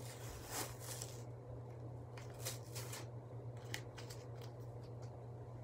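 Shirt tags and their fasteners being pulled off by hand: a few short scratchy rustles and small sharp ticks.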